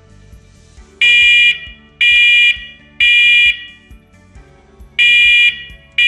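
First Alert SA511CN2-3ST smoke alarm sounding its test alarm in the temporal-three pattern. About a second in come three loud, shrill, half-second beeps a second apart, then a pause, then the next group of three begins near the end.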